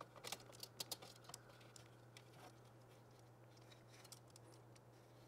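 Faint light clicks and taps, most of them in the first second and a half, as a fan is fitted onto a Noctua NH-D15S CPU air cooler's heatsink, over a faint steady hum.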